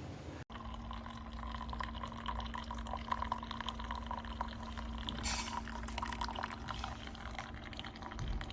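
Keurig single-serve coffee maker brewing: a stream of hot coffee trickling and splashing into a mug, over the machine's steady pump hum.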